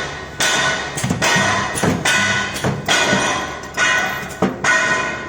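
Steel chain welding machine cycling: a metallic clang a little more than once a second, each strike ringing on like struck metal.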